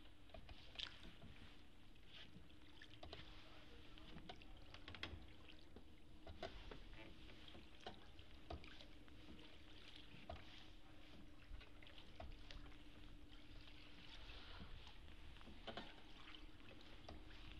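Faint water sounds of a small rowing boat moving through a narrow canal: the oar dipping with small drips, splashes and light knocks at irregular intervals, over a faint steady hum.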